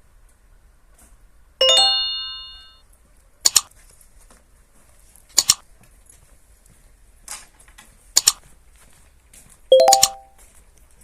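Something metal struck and ringing like a bell, twice, about eight seconds apart, each ring fading over about a second; in between, three sharp double clicks.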